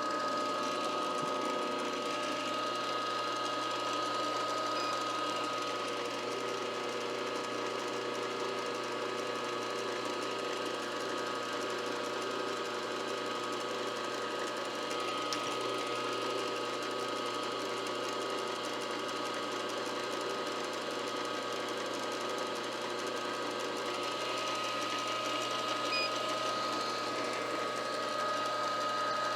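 Milling machine running steadily, its motor and spindle giving a constant whine over a low hum.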